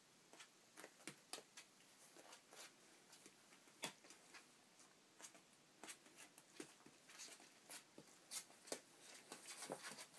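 Faint, irregular ticking and tapping of Sheltie puppies' claws and paws on a hard floor, coming more thickly near the end.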